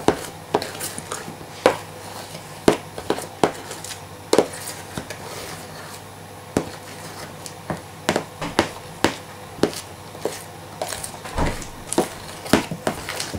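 A metal spoon scraping and tapping against the walls of a plastic container while stirring half-frozen ice cream, in irregular sharp clicks with a short lull about halfway through. The layer frozen onto the walls is being scraped into the middle so that ice crystals don't form.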